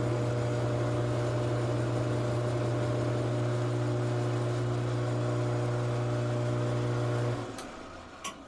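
Metal lathe switched on and running steadily with a low hum, as a parting tool takes the final cut of an O-ring groove in a steel lead screw. It is switched off about seven seconds in and winds down, with two short clicks near the end.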